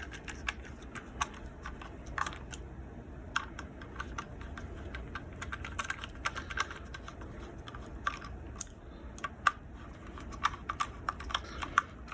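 Small irregular clicks and taps of a screwdriver turning the three screws of a laser grip on a revolver, with handling of the metal gun and tool.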